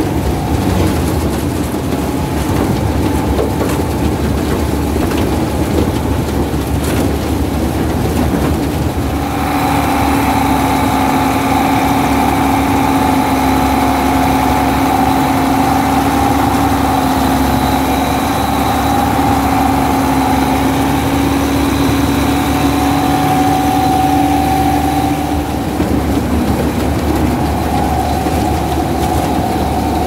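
Malkit combine harvester running while harvesting maize: a steady mechanical drone with constant whining tones that grow louder about a third of the way in and ease off again near the end.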